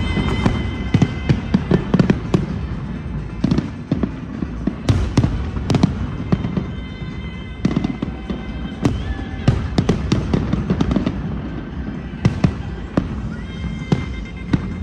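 Fireworks exploding in a rapid, irregular barrage of sharp bangs, with music playing underneath.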